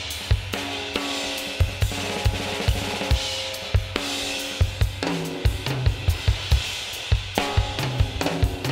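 A soloed multitrack drum kit recording playing back, with kick, snare, hi-hat, cymbals and falling-pitch tom hits, run through a mastering compressor on the drum bus set to grab the drums hard.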